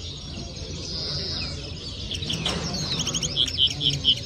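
Caged songbird singing: faint chirps at first, then from about halfway a fast warbling phrase that ends in a run of loud repeated notes, about five a second.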